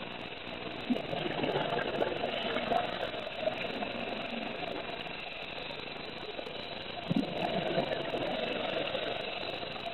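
A scuba diver's exhaled bubbles from the regulator, heard from inside the water as two rumbling, crackling bursts, about a second in and again about seven seconds in, over a steady underwater hiss.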